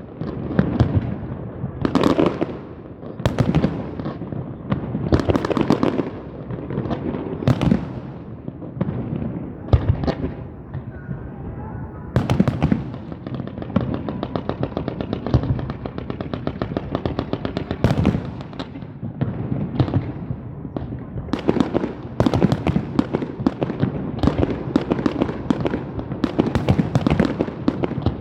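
Fireworks going off: a run of sharp bangs a second or two apart, then a long stretch of fast crackling in the middle, then bangs coming close together again near the end.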